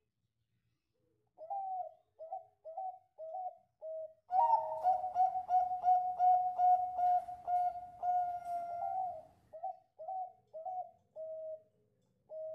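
Bangkok-type zebra dove (perkutut) cooing its song: about a second in, five short cooing notes, then an unbroken rapid rolling coo for about five seconds, then another run of short notes near the end.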